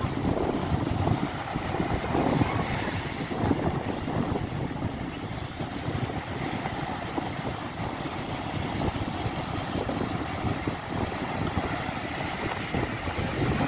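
Surf breaking on a sandy beach, with wind noise on the microphone.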